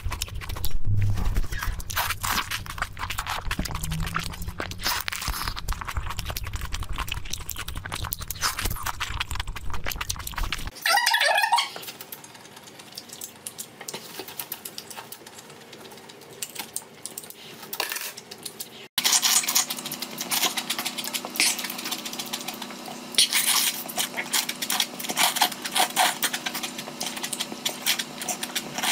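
Sped-up, close-miked eating sounds: wet chewing and lip smacking, and noodles being slurped in the last part. A short falling sound comes about eleven seconds in, and the sound changes abruptly where the clips cut.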